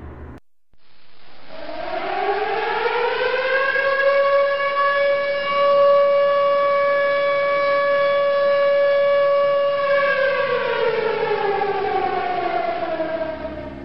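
Outdoor tornado warning siren winding up about a second in, holding a steady wail for several seconds, then winding down near the end.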